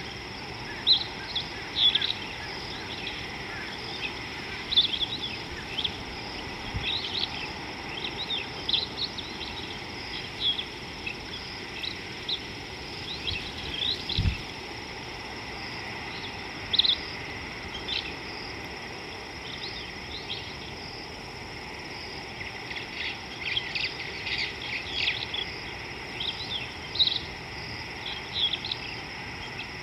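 Wild birds chirping in short, scattered calls over a steady high insect drone and low outdoor background noise, with a busier run of chirps near the end. A single dull thump about halfway.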